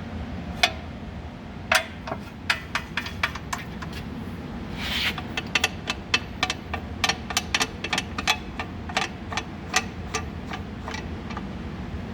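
Light metal clicks and knocks from a Myford Super 7 lathe's parts being handled, at an uneven two or three a second, with a brief rustle about five seconds in, over a steady low hum.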